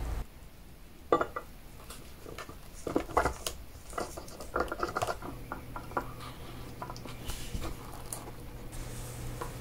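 Small irregular clinks and taps of brass clock parts as the mainspring barrel is handled and seated on the carriage clock's brass plate, the sharpest about a second in and again around three seconds.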